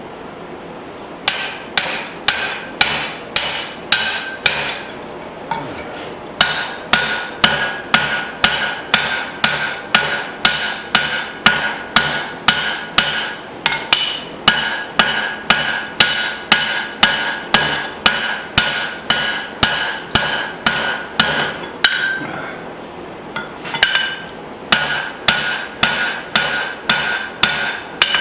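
Rounding hammer striking hot spring steel on an anvil, forging the head of a hammer hatchet: steady blows about two a second in three runs with short pauses, and the anvil ringing between strikes.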